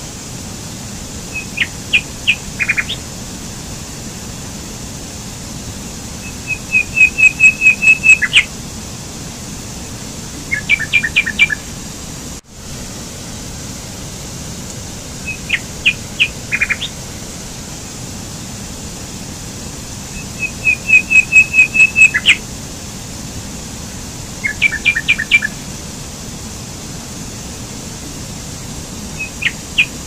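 A forest stream cascading over rocks gives a steady rushing hiss. Over it a songbird sings every few seconds: short runs of high chirps and a rapid trill, louder than the water. The same sequence of calls repeats about fourteen seconds later, as in a looped recording, with a brief dropout in between.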